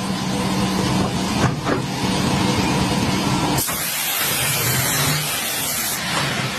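Power miter saw running and cutting: a loud, steady motor noise with a low hum, changing abruptly to a brighter hiss about three and a half seconds in.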